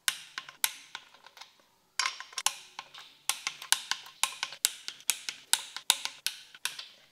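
Ratchet head of a torque wrench clicking over and over as a main bearing cap nut is run down, about three clicks a second with a short pause a little after one and a half seconds in.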